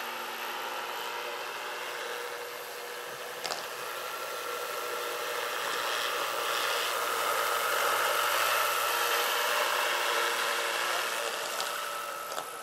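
Electric-powered XXXL scale model Hughes 500 helicopter with a 2.65 m rotor flying by: a steady whine from its electric drive over rotor noise. It grows louder as the helicopter passes close about halfway through, then fades as it moves away.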